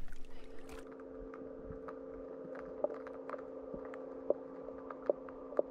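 Underwater sound picked up by a dive camera: a steady low hum of two even tones, with scattered sharp clicks and snaps.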